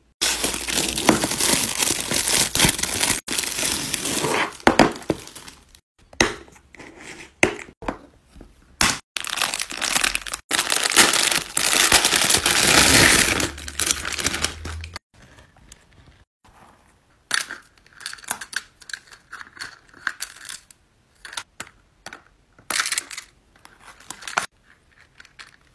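Clear plastic packaging crinkling and being torn open, in two long loud stretches. After that come quieter, scattered small clicks as clay heishi beads are handled and dropped into a hard plastic compartment box.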